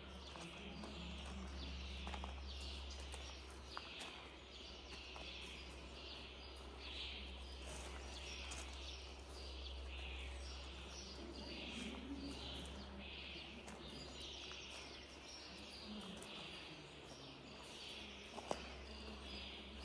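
Small birds chirping in quick, repeated short calls over a steady low rumble, with a faint murmur of distant voices and a couple of sharp ticks near the end.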